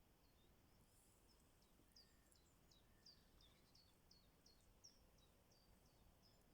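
Near silence with a faint small bird chirping, short high notes repeated about three times a second.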